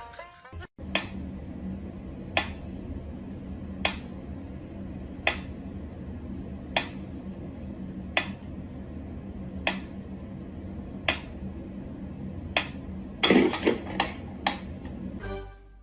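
Sharp clicks or taps repeating evenly about every second and a half over a steady low hum, then a quick flurry of louder knocks near the end.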